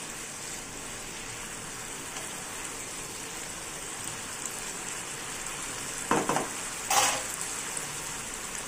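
Cluster beans in a tomato masala gravy sizzling steadily in a non-stick pan while being stirred with a wooden spatula. There are two short, louder noises about six and seven seconds in.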